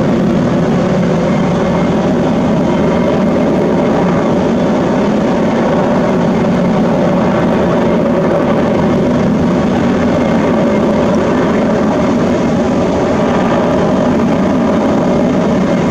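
A steady, loud mechanical drone with a low hum and many faint steady tones, unchanging throughout, like a distant engine running continuously.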